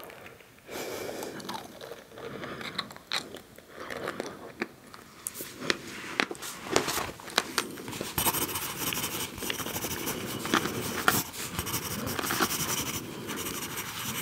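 Close-up ASMR chewing and crunching of salty snacks: many small crisp crunches, getting denser about halfway through.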